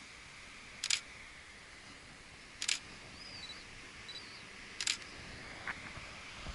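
Camera shutter firing three times, about two seconds apart, each a short sharp click over a faint steady background hiss.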